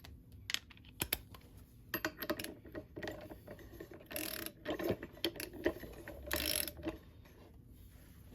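Ratchet wrench and hand tools working the clutch basket nut of a 2005 Tomos A35 moped engine: scattered metal clicks and clinks, with two short runs of ratcheting about four and six seconds in.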